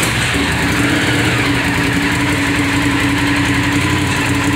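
Honda VTR1000 Firestorm's 996 cc V-twin engine idling steadily, run with the cooling system open so it can be topped up with water and air bubbles purged during a coolant flush.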